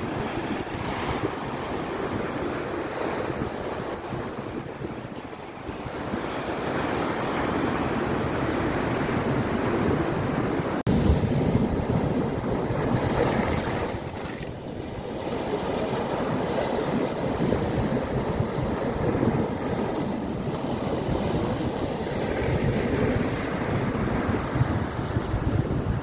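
Sea waves breaking and washing over a flat rock shelf, the surf swelling and easing in slow surges, with wind buffeting the microphone. The sound breaks off abruptly about eleven seconds in and comes back louder.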